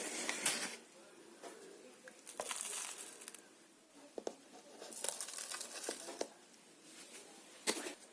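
Intermittent rustling and crinkling with a few light clicks and taps, from hands handling small plastic pots and seedlings during transplanting.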